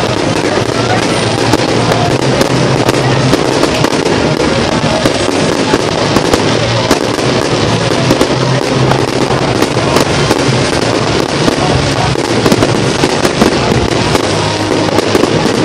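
Aerial fireworks bursting and crackling in a dense, continuous run of sharp pops, with music playing underneath.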